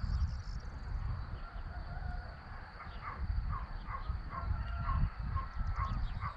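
Wind rumbling on the microphone, and from about halfway through a bird calling in a quick, even run of short notes, about two or three a second.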